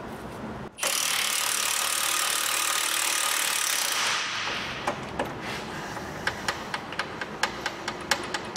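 Impact wrench running in one steady rattling burst of about three seconds, undoing the 18 mm pinch-bolt nut that holds the lower ball joint in the hub. After it come a series of light metallic clicks from tools and the loosened nut.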